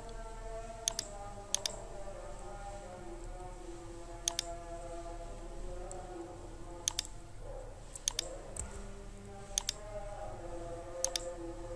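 Computer mouse clicks: about seven sharp clicks at irregular intervals, each heard as a quick double tick. They sound over a faint, steady background of held tones.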